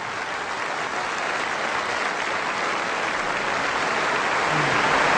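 Audience applause, growing steadily louder.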